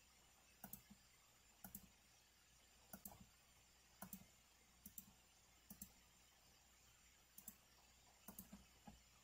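Faint computer mouse button clicks, about one a second, each a quick pair of ticks (press and release).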